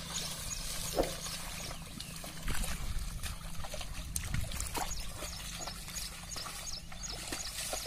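Hooves of a pair of bullocks and a plough sloshing and splashing through flooded paddy mud, in short, irregular splashes.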